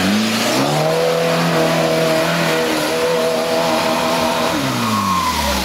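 Off-road vehicle's engine revving up, held at high revs for a few seconds, then dropping back near the end.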